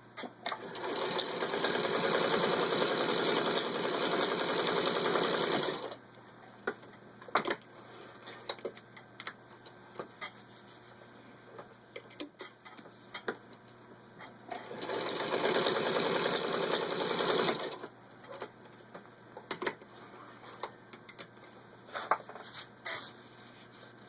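A 1946 Singer 15-90 heavy-duty sewing machine stitching through six layers of denim. It runs steadily for about five seconds, then after a long pause runs again for about three seconds. Scattered clicks and knocks sound in between.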